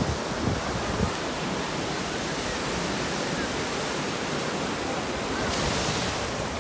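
Sea surf breaking and washing up a sandy beach in a steady rush of noise. Near the end a brighter hiss comes in as foam washes in close.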